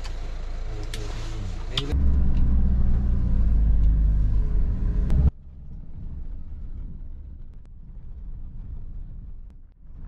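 Minibus engine running, heard from inside the cabin as a steady low rumble that steps up louder about two seconds in. It cuts off abruptly at about five seconds, giving way to quieter road and engine noise from a vehicle driving.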